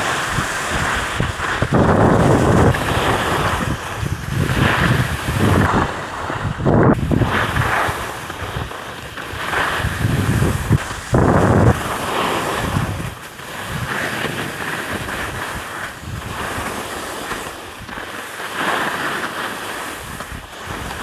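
Skis sliding and scraping over the snow of a groomed slope through a series of turns, the noise swelling and fading every second or two, with wind rushing over the microphone.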